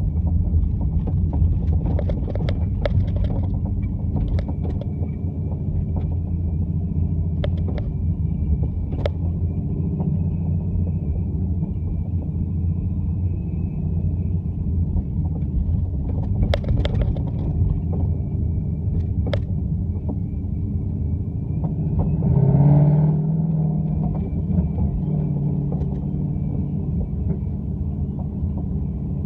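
Boat engine running under way with a steady low rumble. Sharp clunks come through it every few seconds, the clunk noise under investigation. Near two-thirds of the way in, the engine briefly swells and rises in pitch.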